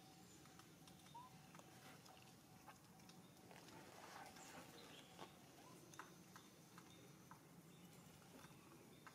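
Near silence: faint outdoor ambience with a few scattered soft clicks.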